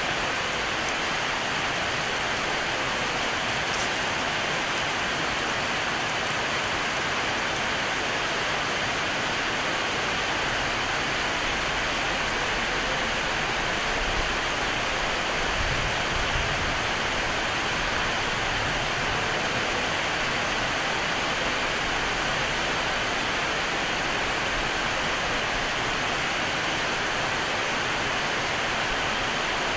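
Steady rain falling on corrugated sheet roofing and clay roof tiles: an even, unbroken hiss. A brief low rumble comes about halfway through.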